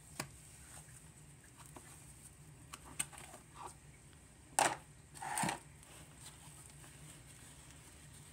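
Frozen yogurt slime being played with: scattered small sticky clicks and pops, with two louder squishes about four and a half and five and a half seconds in.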